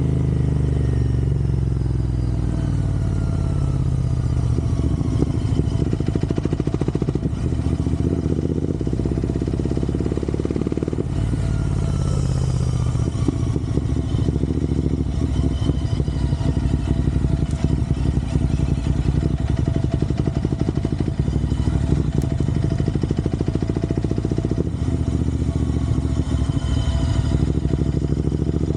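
Royal Enfield Interceptor 650's parallel-twin engine running steadily while the motorcycle is ridden.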